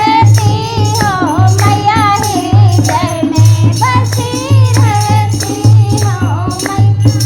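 Devotional Hindi Devi song: a voice singing a melody with vibrato over a low drum beat about once a second and jingling rattle-type percussion.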